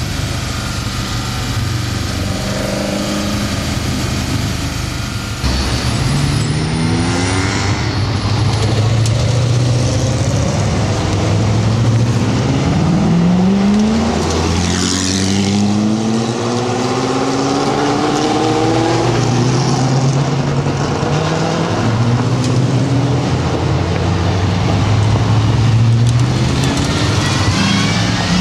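GT40 replica race cars' engines under hard acceleration, the note climbing again and again as they rev up through the gears. For the first five seconds or so it is heard from inside one car's cockpit. Then the cars are heard passing close by, accelerating out of a hairpin, with one going by loudly about halfway through.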